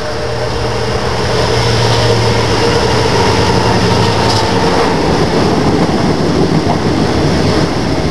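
Diesel-hauled freight train passing close by: the locomotive's engine drone is strongest for the first few seconds as it comes up and passes, then the steady rumble of the wagons rolling by.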